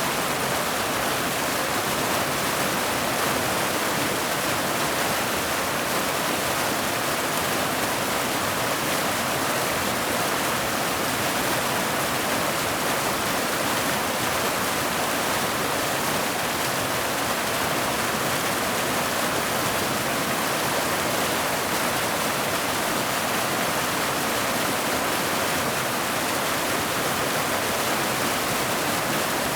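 Mountain waterfall cascading over boulders into a pool: a steady, even rush of water that does not change.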